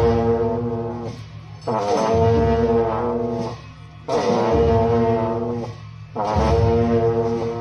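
Tibetan monastic long horns (dungchen) blowing a low, buzzing drone, with a higher held horn line above it. The playing comes in long blasts that pause briefly and start again three times.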